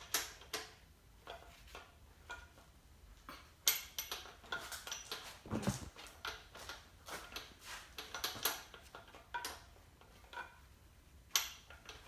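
Metal hand tools and engine parts clinking and tapping during an engine teardown: an irregular string of sharp metallic clicks and knocks, with a duller thud about five and a half seconds in.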